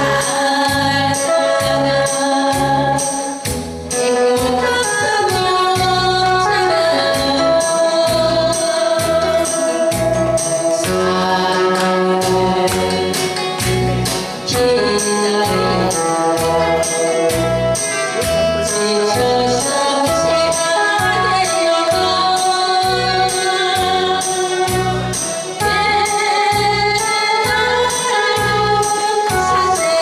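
A woman singing a Korean song through a microphone and PA over backing music with a steady drum beat.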